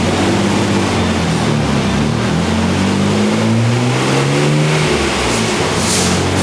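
Nissan RB26DETT twin-turbo straight-six in a 240SX, running loud under load on a dyno. Its pitch climbs and falls back several times. The engine has a bad misfire.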